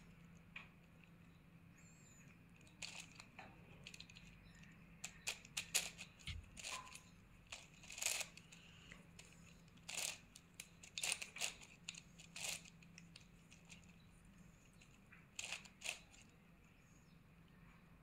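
Plastic 9×9 puzzle cube being turned by hand: its layers clack and click in irregular bursts, with short pauses between turns.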